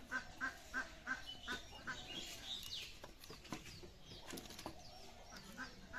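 Chickens clucking with small birds chirping: a run of short repeated calls, about three a second, over the first two seconds, then scattered higher chirps. A few light knocks, the kind sticks make when handled, come in the second half.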